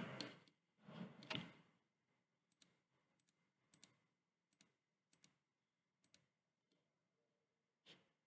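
Near silence with faint computer mouse clicks now and then, the two most audible about a second in.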